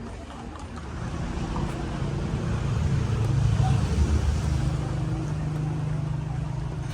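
A motor vehicle's engine running with a steady low hum over street traffic noise. It grows louder over the first few seconds, then holds steady.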